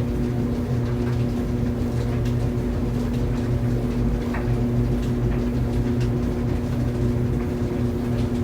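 Laundry clothes dryer running: a steady hum from the motor and drum, with faint irregular clicks.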